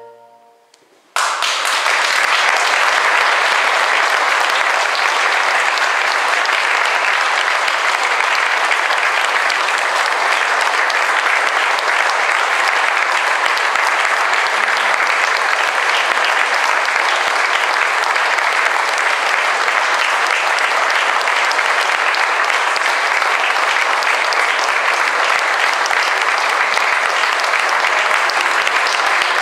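Audience applauding at the end of a piece: after a brief hush, clapping breaks out suddenly about a second in and continues steadily.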